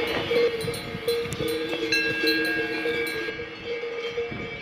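Several cowbells on grazing cattle ringing together: a steady blend of held bell tones with irregular clanks.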